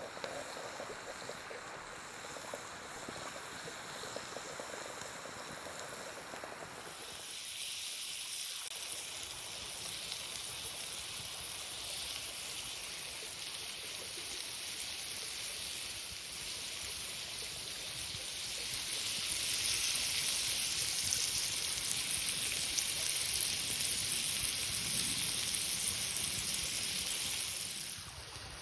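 River water running, a steady rushing hiss. About seven seconds in, it switches abruptly to a brighter, higher hiss, which grows louder from about twenty seconds in until just before the end.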